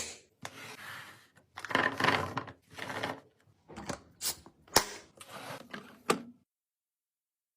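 Containers and packaging being handled and set down while a fridge is restocked: sharp clicks and taps with stretches of rustling. It cuts to silence about six seconds in.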